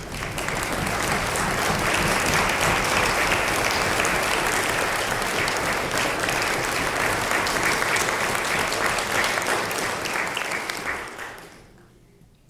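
Audience applauding: dense, steady clapping that dies away about eleven seconds in.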